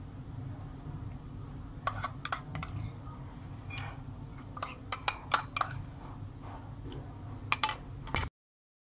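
Spoon clicking and tapping against a plastic mixing bowl as ginger garlic paste is added to chicken legs, in short clusters of sharp clicks, over a steady low hum.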